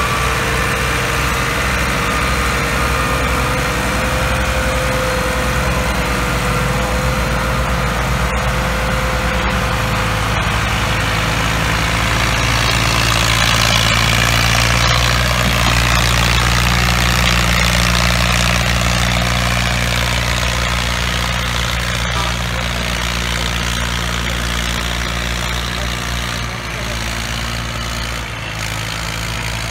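Two Massey Ferguson 260 tractors' three-cylinder diesel engines running hard under heavy load, hauling a loaded sugarcane trolley in tandem: a steady low engine drone, loudest about halfway through as the rig passes close, then growing fainter as it pulls away.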